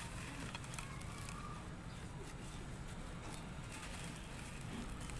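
Dry red dirt crumbling in the hands and trickling into a clay bowl: a gritty crunch with many small crackles.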